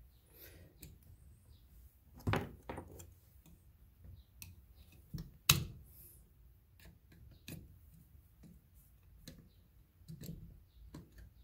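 Scattered clicks and light knocks as wires are worked loose from an old electrical receptacle, with a sharper knock about two seconds in and the loudest click about five and a half seconds in.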